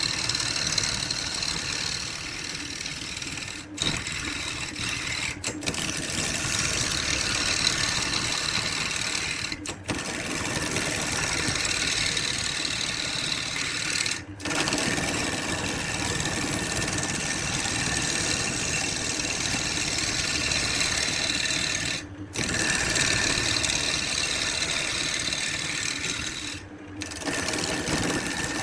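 A woodworking power tool running steadily, with a fast mechanical whirring that breaks off for a moment about five times.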